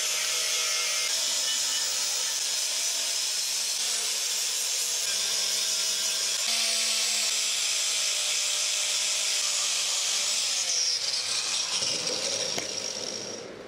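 Angle grinder with an abrasive disc grinding the rusted steel of a shovel blade, a steady high grinding hiss. Near the end the grinder comes off the metal and its whine falls in pitch as it winds down.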